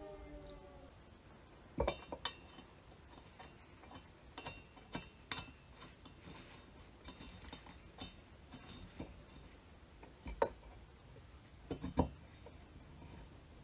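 Metal pump parts and tools being handled: about a dozen sharp clinks and knocks at irregular intervals, the loudest around two seconds in and twice near the end.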